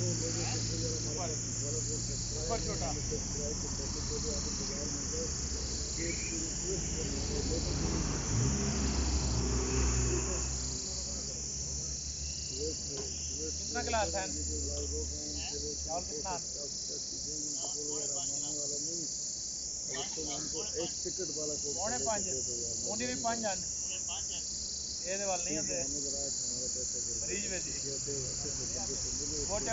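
Insects chirping steadily in a high shrill drone that pulses about once a second. A low steady hum underneath stops about ten seconds in.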